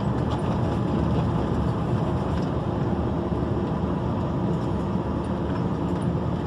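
Mercedes-Benz Axor 3344 6x4 truck's 440 hp turbo diesel engine pulling steadily under load while hauling a loaded sugarcane trailer, heard from inside the cab.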